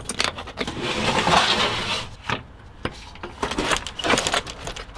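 The engine cover inside a military HMMWV's cab being unlatched and pulled free. Sharp metal clicks and knocks are followed by a scraping rustle about one to two seconds in, with more knocks and rattles near the end.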